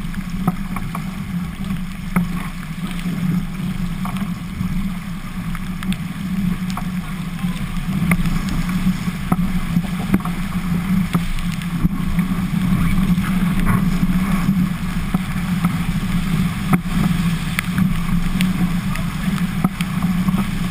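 Wind and rushing water roaring over a boat-mounted camera on an Albacore sailing dinghy planing at about 13 knots, with a steady low drone and scattered sharp knocks and spray hits throughout.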